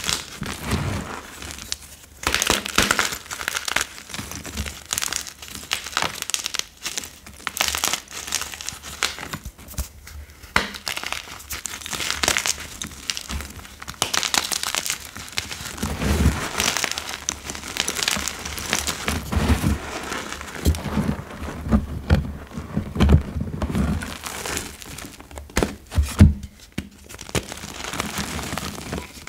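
Powdery gym chalk crumbling and crunching as bare hands squeeze and crush broken chunks of reformed chalk block in a heap of chalk dust: an irregular run of soft crackles and crunches. Dull low thuds join in during the second half as the hands press down into the powder.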